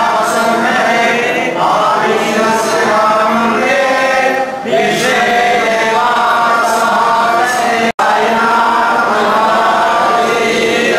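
Group of voices chanting a devotional hymn together in a continuous sung chant. The sound breaks off for an instant about eight seconds in.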